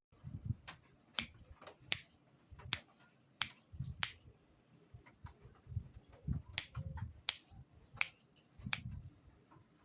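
A series of sharp, faint clicks, about one every 0.7 s, with soft low thumps among them.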